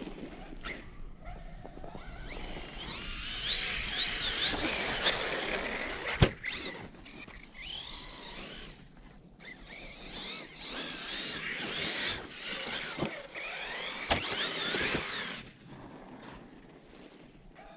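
ARRMA Siren 6s 1/10 RC truck's brushless motor whining, rising and falling in bursts as it drives and spins its tyres in deep snow, struggling for traction. A sharp knock sounds about six seconds in, with lighter knocks later.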